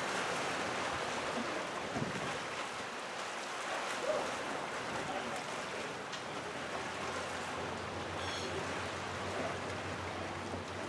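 Steady wind and water noise, with a faint low hum coming in about eight seconds in.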